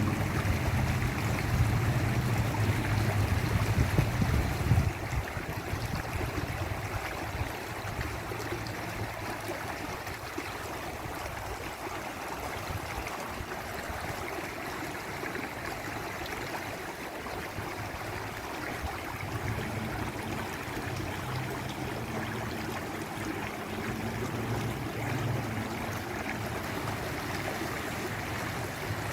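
Waterfall rushing: a steady hiss of falling water. A low rumble sits under it for the first five seconds and comes back for a while about twenty seconds in.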